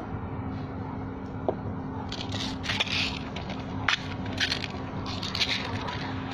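Handling noise: small metal objects clinking and scraping in several short rattles from about two seconds in, with a sharp click a little before the four-second mark.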